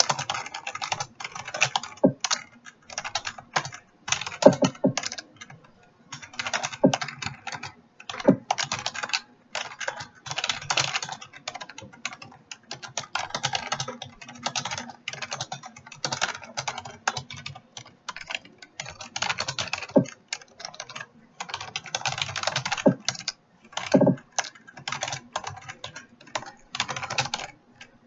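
Computer keyboard typed on quickly in bursts of rapid key clicks with short pauses between words, with an occasional heavier thump as the space bar or a key is struck hard.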